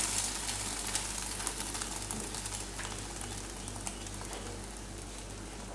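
Egg omelette sizzling in olive oil in a small square non-stick frying pan, its second side cooking just after being turned over. It is a steady sizzle with small crackles that slowly dies down.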